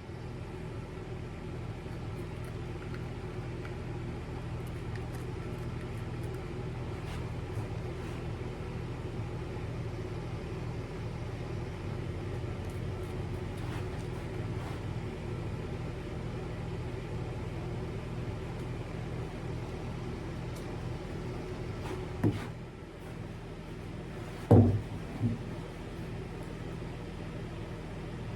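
Chainsaw running steadily as it cuts through a locust stump. Near the end the sound drops away, followed by one loud heavy thump and a smaller knock just after.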